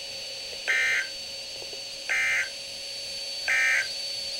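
NOAA Weather Radio SAME data tones: three short, identical bursts of buzzy digital warbling about 1.4 s apart, the EAS end-of-message code that closes the alert. They sound over a steady radio hiss with a faint constant high whine.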